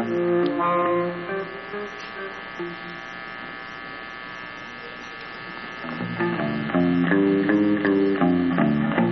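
Live instrumental music from a small band of saxophone, electric guitar and bass guitar. A melody ends about a second in and a chord rings out and fades. About six seconds in, the guitars and bass start again with picked notes over a bass line.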